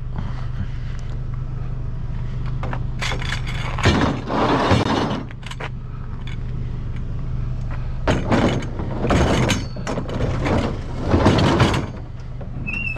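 A vehicle engine idling steadily, with two stretches of loud rattling and knocking, one about four seconds in and another from about eight to twelve seconds in.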